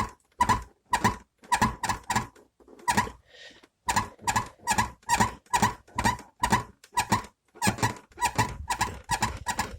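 Renault Logan door squeaking in a steady rhythm of about two short creaks a second, with a brief pause about three seconds in, as the closed door is pressed by hand. It is the 'cricket' that comes from the door lock striker rubbing in the latch, its plastic part worn down by rough gravel roads.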